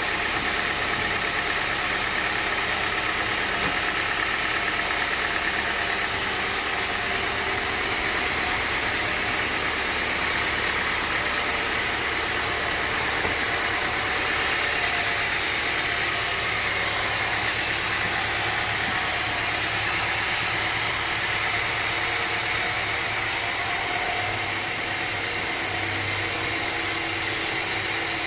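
Sawmill machinery running steadily, a continuous mechanical drone and whine that holds at an even level throughout.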